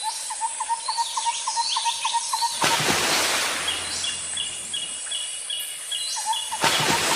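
Birdsong background track: one bird chirping in a fast, even series of short notes, about four a second, with other birds calling higher and two brief surges of hiss about three and seven seconds in.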